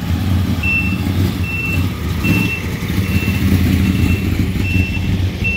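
A vehicle's reversing alarm beeping, seven short high beeps evenly spaced just under a second apart, over a steady low engine rumble.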